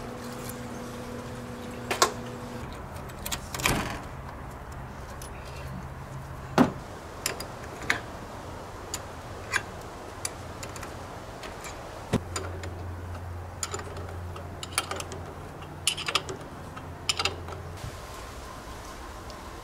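About fifteen irregular clicks and clinks as a wrench works a bolt through the awning's support arm and handles the arm.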